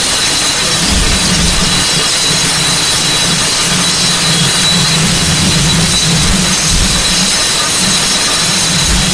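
Electric fan running steadily as white noise: an even, loud rushing hiss with a low, wavering hum underneath.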